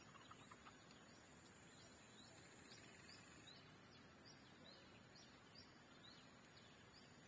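Near silence: faint outdoor ambience with a steady high hiss and a small bird chirping faintly, a short call about two or three times a second, from a couple of seconds in to near the end.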